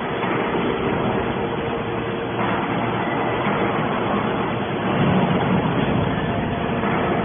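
Scrap metal baler running, a steady mechanical hum and rumble that grows slightly louder about five seconds in.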